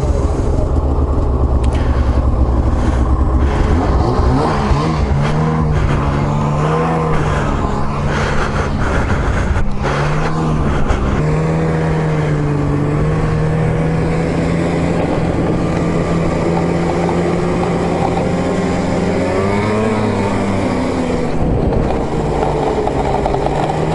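Two-stroke snowmobile engine running, its pitch rising and falling with the throttle for several seconds, then holding fairly steady with a slight rise.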